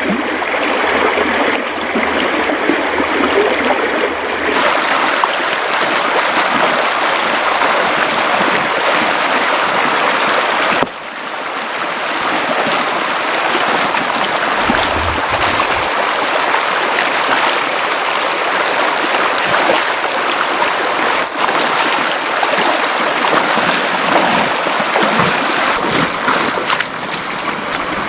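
Shallow river rushing over rapids: a steady, full rush of running water.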